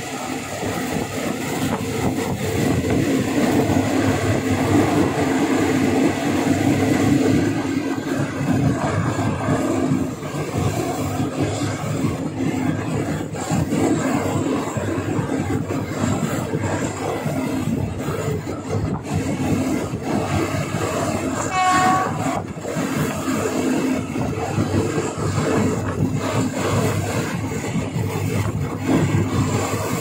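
Passenger train running along the track with a steady rumble. A brief high tone sounds about two-thirds of the way through.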